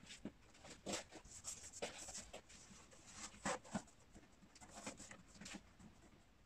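Handling of a wooden picture frame and its backing board: faint rubbing with scattered light taps and knocks as the board is pressed down and seated in the frame, the clearest knocks about a second in, near two seconds and around three and a half seconds.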